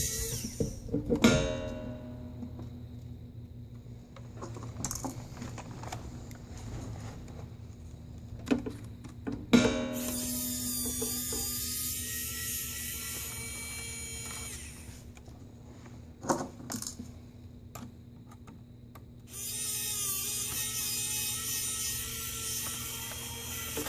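Small electric screwdriver whirring in two runs of about five seconds, backing out the Phillips screws that hold a laptop LCD panel. A few short knocks of small parts and tools come in between.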